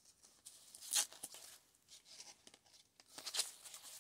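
Sheer ribbon and tulle rustling and crinkling as they are handled, with two louder swishes, about a second in and again near the end.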